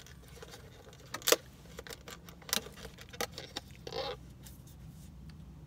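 Small sharp clicks and taps from a plastic coffee-cup lid being handled, the loudest a little over a second in, with a few lighter clicks after and a short rustle about four seconds in. A low steady hum runs underneath.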